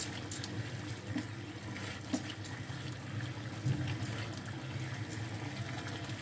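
Semolina halwa bubbling and sizzling steadily in a non-stick wok over a raised flame as it is stirred with a spatula, with a few light clicks.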